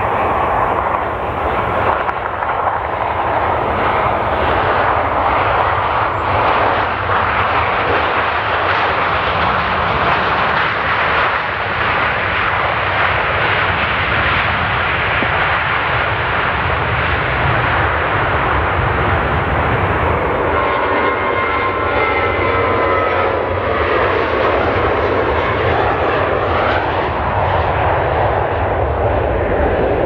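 Loud, steady jet noise from a Boeing 737 airliner's engines as it lands and rolls out on the runway. About twenty seconds in, the sound changes to a brighter roar with a faint whine of engine tones as another jet airliner, an Airbus A321, takes off and climbs.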